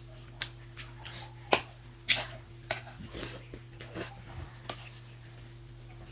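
Eating sounds from a momo and jhol soup mukbang: a string of sharp, irregular mouth clicks and smacks, the loudest two about a second and a half and two seconds in.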